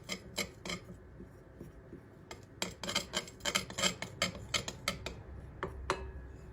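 A spoon stirring a thick cornflour-and-water mix in a mixing bowl, clicking and scraping against the bowl in irregular strokes, with a short pause about a second in.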